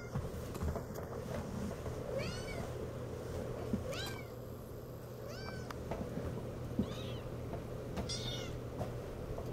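Six-week-old Siamese kittens mewing: about five short, high-pitched mews, each rising and falling in pitch, roughly one every second and a half.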